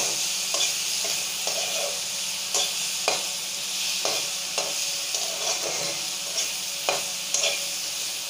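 Sliced onions and ginger-garlic paste frying in a little oil in a kadai, a steady sizzle. A metal spatula scrapes and taps against the pan about once or twice a second as they are stirred.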